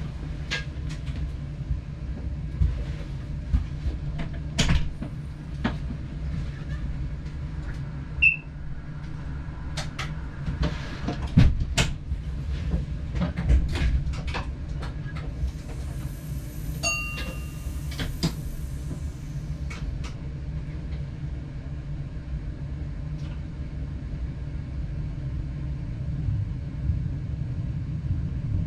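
Passenger train running along the line as heard from the driver's cab, a steady low rumble with scattered clicks and knocks from the wheels on the track. A brief hiss with a few short high tones comes about two-thirds of the way through.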